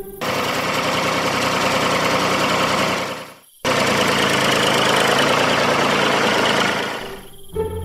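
Tractor engine running steadily, cutting out for a moment about three and a half seconds in, then running again and fading near the end.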